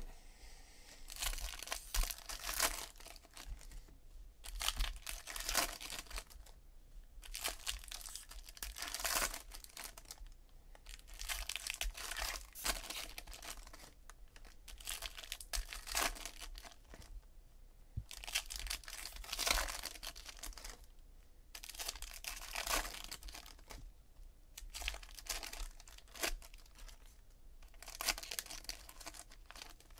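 2016 Bowman's Best foil trading-card pack wrappers being torn open and crinkled by hand, in a run of short rustling bursts every second or two.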